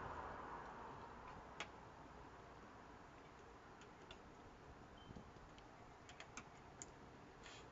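Near silence: a noise fades away over the first second, then a handful of faint, scattered clicks and ticks.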